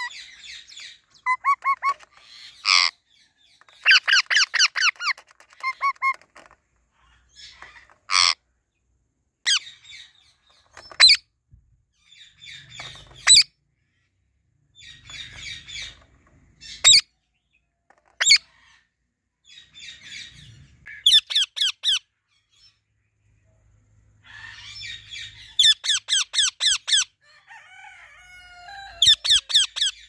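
Alexandrine parakeets calling: a string of short, shrill squawks, some single and sharp, others in quick runs of rapid repeated notes, with the busiest chattering near the end.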